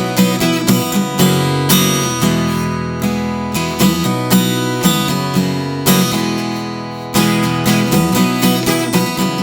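Taylor 714ce acoustic guitar strummed in a steady rhythm, playing a song's instrumental intro.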